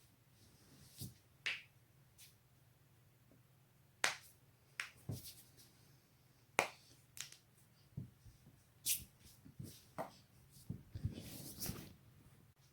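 Neck and back joints cracking: a string of sharp, irregularly spaced pops, with a quick flurry of cracks near the end.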